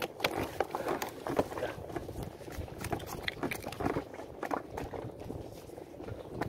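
Handling noise from unhooking a freshly caught small fish held in a cloth: irregular taps, clicks and rustling.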